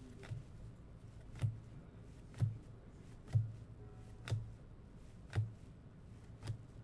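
Topps Chrome trading cards being flipped one at a time through a stack in the hands: seven soft taps, about one a second, as each card is moved from the front of the stack to the back.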